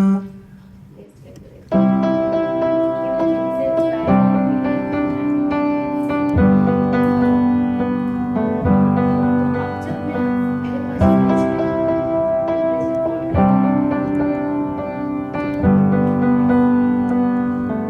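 Background music: an instrumental piano passage of sustained chords that change about every two seconds. The piano comes in after a short quieter gap at the start.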